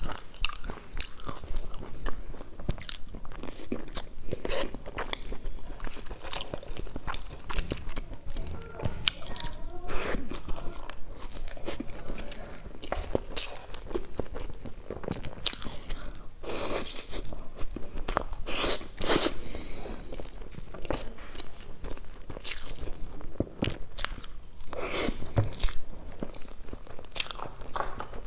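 Close-miked eating of a soft cream cake off a spoon: chewing, lip smacks and many sharp mouth clicks.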